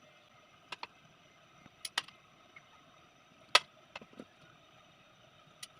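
A few scattered light taps and clicks of chicken pieces and a utensil against a bowl as the chicken is coated in the dry flour mixture, the loudest about halfway through, over a faint steady background hiss.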